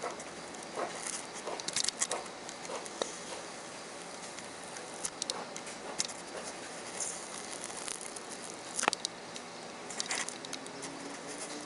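Soldering iron tip scraping and picking at charred glue on a small TV loudspeaker, digging out the burnt adhesive to expose the end of the broken voice-coil wire. Faint, irregular scratches and light clicks, a few at a time, with short gaps between them.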